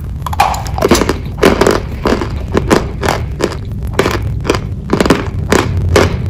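Close-miked crunching bites and chewing of a white chalky block, sharp crunches coming about three a second over a steady low hum.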